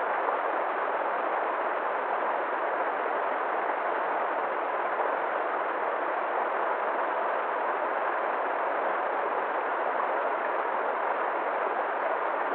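River water flowing: a steady, even rush of running water with no change in level.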